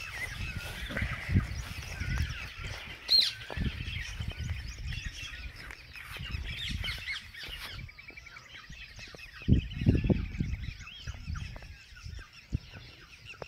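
Many birds calling and chirping together in a busy chorus. Low rumbling bursts and knocks come through it now and then, loudest about a second and a half in, about three seconds in, and again around nine and a half to ten seconds in.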